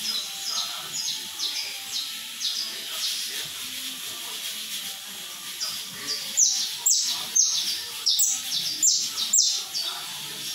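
Caged male canário-da-terra (saffron finch) singing a run of quick, high chirping notes. A little over halfway through it swells into a string of about seven loud, sharp notes, then eases off.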